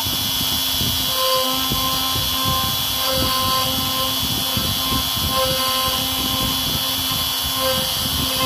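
OpenBuilds CNC router carving a wooden sign: the spindle runs with a steady high whine while the bit cuts the wood. Short pitched tones start and stop every second or so as the machine's axes move.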